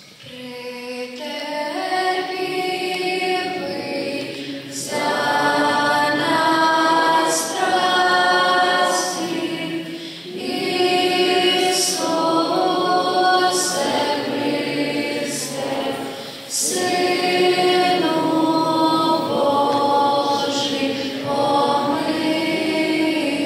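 A choir singing in long phrases of held notes, with short breaks about ten seconds in and again about sixteen seconds in.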